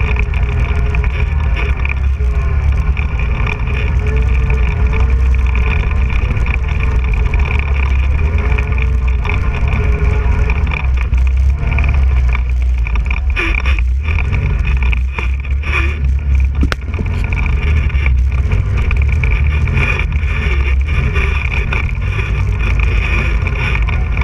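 Quad bike (ATV) engine running steadily close up as it rides along a rough dirt trail. A few short knocks come from about halfway through.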